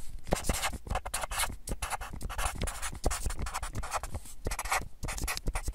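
Pencil scratching on paper in quick, irregular strokes, the sound of handwriting.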